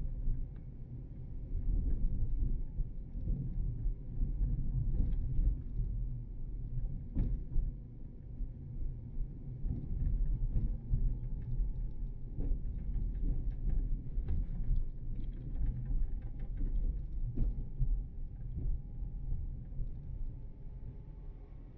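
Car driving: a steady low rumble of engine and road noise, with scattered light knocks and rattles.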